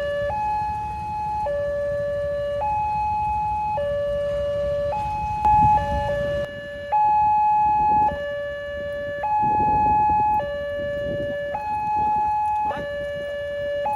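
Railway level-crossing warning siren sounding a continuous two-tone alarm, switching between a higher and a lower tone about once a second. Low rumbling noise swells under it a few times midway.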